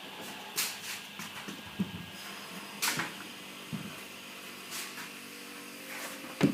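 Scattered light clicks and knocks of objects being handled and set down, a few sharp and a couple duller, over faint room hiss.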